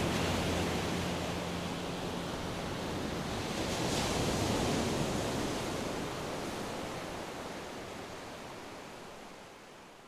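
A soft, even noise wash like distant surf, swelling about four seconds in and then slowly fading out. The last low notes of the closing music die away in the first second or two.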